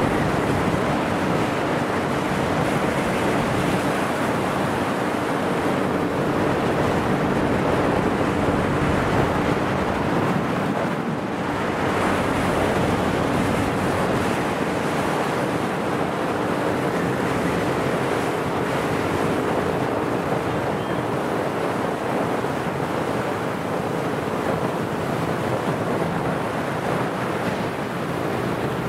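Steady rush of water and wind from a chase boat under way on a lake, with the boat's engine droning faintly underneath.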